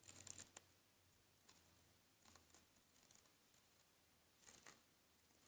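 Faint, short scratching and rustling against paper, a few brief strokes spaced a second or two apart.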